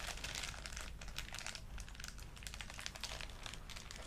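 Toy packaging being opened by hand: irregular crinkling and crackling of plastic and cardboard as the figure is unwrapped.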